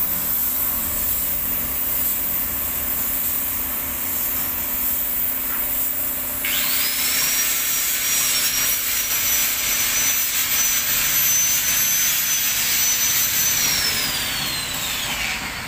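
Compressed air hissing from a spray gun as clear coat is sprayed onto a car bumper. About six seconds in, a high whine starts up with a louder rush of air, holds steady, then winds down in pitch near the end.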